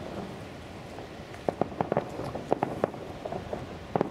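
Aerial fireworks going off in an irregular run of sharp cracks and pops, starting about a second and a half in, with a few more near the end.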